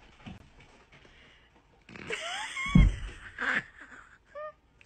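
A loud thump about three seconds in, among short high cries that slide in pitch, with a short cry near the end.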